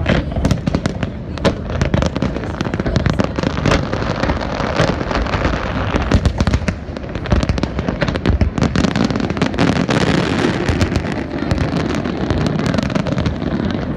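Aerial fireworks finale barrage: many rapid, overlapping bursts and crackles over a continuous low rumble, with no let-up.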